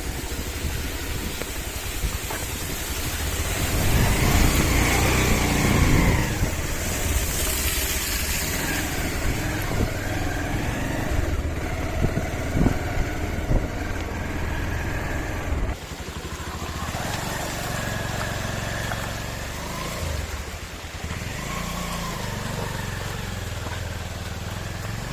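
Motorcycle engine running under a rider on a rough off-road track, its pitch rising and falling with the throttle, with wind noise on the microphone. It is loudest a few seconds in.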